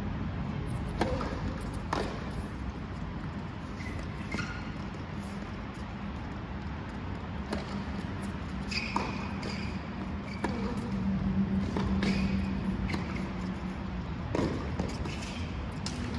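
Tennis ball being bounced and struck with rackets during play, a series of sharp pops about a second or so apart, over a steady low hum.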